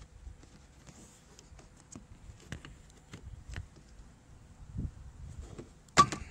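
Hand work on a car door's latch and release cable: scattered light clicks and taps, then one sharp knock with a short ring near the end.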